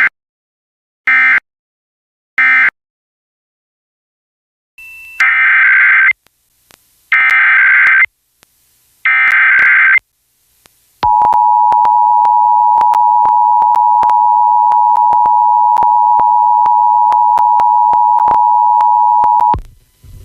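Emergency Alert System tones: three short end-of-message data bursts, then the three one-second SAME header data bursts of a required monthly test, then the two-tone attention signal (853 and 960 Hz), held for about eight and a half seconds before it cuts off. Faint clicks are heard over the tone.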